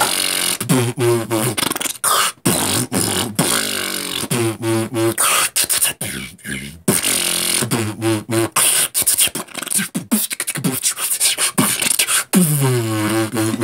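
A person beatboxing: fast mouth percussion of booms, clicks and hisses, with short hummed bass tones between the beats and a longer sliding hum near the end.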